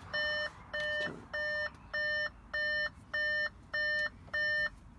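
Audi SQ5's cabin warning chime beeping, about eight short, even beeps at under two a second, stopping near the end.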